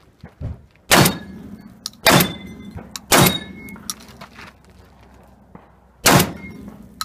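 Four shotgun shots, the first three about a second apart, then a pause of nearly three seconds before the fourth.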